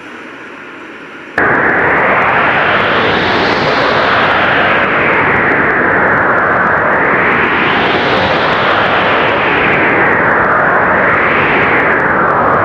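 Strong blizzard wind blowing as a loud, even rush whose pitch swells up and falls back in slow gusts about every four seconds. It cuts in abruptly about a second and a half in, replacing a quieter sound.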